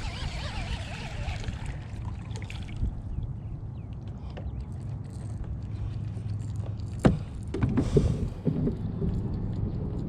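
A steady low rumble, then about seven seconds in a sharp knock followed by a run of thuds as a landed bass on a topwater lure flops and bangs against the plastic kayak hull.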